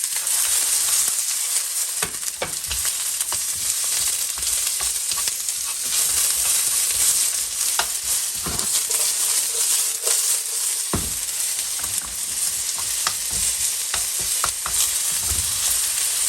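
Onion sizzling in hot oil in a wok, stir-fried with chopsticks, with scattered clicks and knocks of the chopsticks against the wok.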